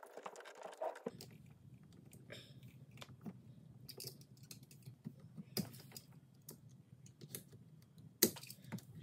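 Thick 6/3 NM electrical cable being stripped by hand, a utility knife working through its outer plastic jacket and the conductors pulled free: faint scratching with scattered small clicks and rustles, the sharpest click about eight seconds in. A low steady hum lies underneath.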